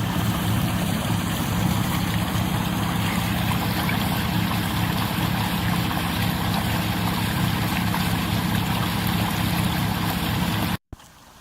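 A sailboat's engine running steadily under way, a low even drone; it stops abruptly near the end.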